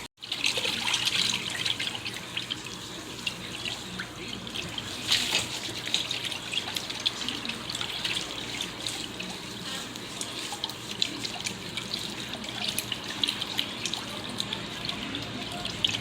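Water running and splashing in a pedicure foot basin, a steady hiss with small irregular splashes.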